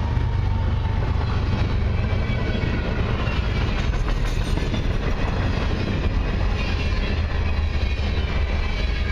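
Freight train of covered hopper cars rolling past close by: a steady, loud, low rolling sound of steel wheels on the rails.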